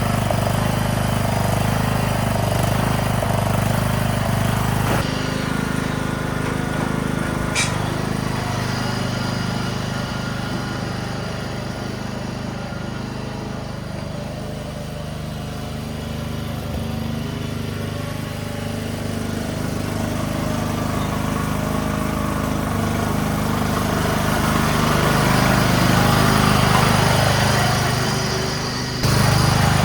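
Yard-Man riding mower's Briggs & Stratton engine running steadily while the mower is driven around. It fades somewhat in the middle and grows louder again toward the end, with abrupt jumps in the sound about five seconds in and near the end.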